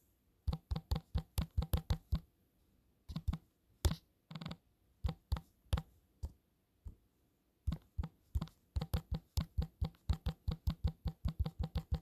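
Typing on a smartphone's on-screen keyboard: runs of quick light taps, several a second, with short pauses between words. The run is densest in the last four seconds.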